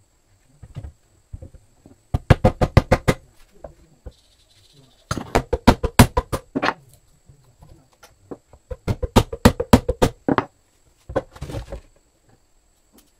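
Quick runs of light wooden knocks on a wooden plate, about eight a second, coming in four bursts.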